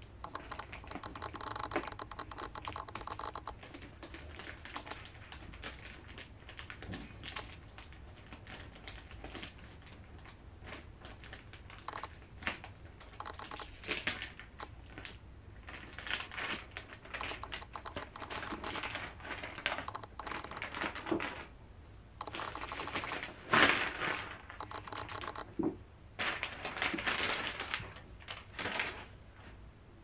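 Cardboard doll box and its plastic packaging being handled and opened, with rustling, crinkling and many small crackling clicks. The loudest crinkling bursts come about two-thirds of the way in and again near the end.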